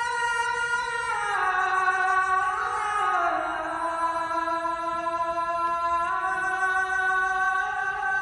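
A single voice singing a slow melody in long held notes, stepping down in pitch twice and rising again near the end.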